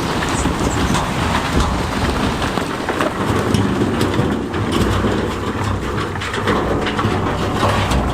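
Heavy diesel machinery running, with a continuous rattle and clatter of big stones tumbling and grinding as they are dumped or pushed.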